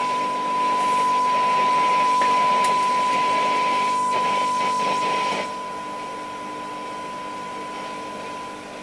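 Transistor radio's loudspeaker sounding a steady 1 kHz test tone under a loud rushing hiss while the set is being aligned on FM. About five seconds in the hiss cuts off suddenly, leaving the tone quieter and cleaner.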